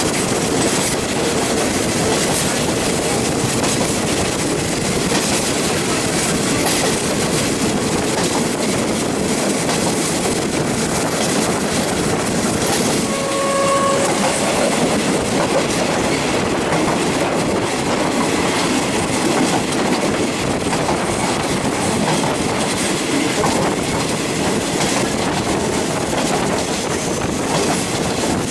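State Railway of Thailand express passenger train running, heard from an open carriage window: steady wheel-and-rail noise with wind. A brief single tone sounds about halfway through.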